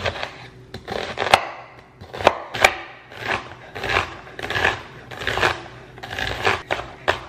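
A chef's knife dicing an onion on a wooden cutting board: a string of crisp cuts, each a crunch through the onion ending in a knock of the blade on the board, at an uneven pace of one or two a second.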